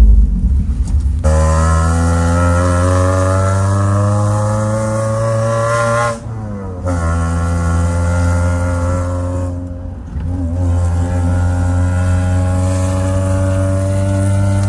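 Off-road 4x4's engine heard from inside the cabin, the revs climbing slowly as it pulls. Twice, about six and ten seconds in, the revs and level drop briefly, as at a gear change.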